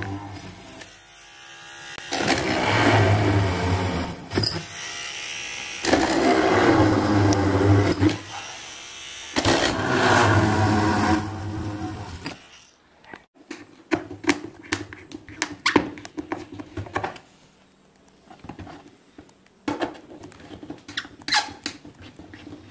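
Small DC motor used as a makeshift drill runs in four bursts of a few seconds each, boring screw holes into the MDF box through the speaker's mounting rim. After that come scattered clicks and light scraping from hand work on the speaker.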